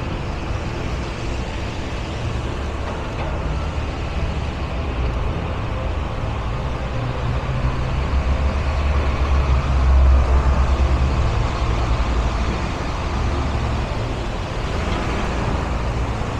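City street traffic on wet pavement: a steady low engine rumble with tyre hiss, swelling as a louder vehicle passes about ten seconds in.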